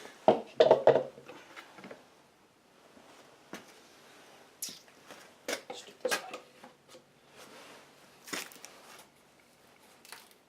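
Objects being handled and moved about: a cluster of knocks in the first second, then scattered clicks, taps and rustles.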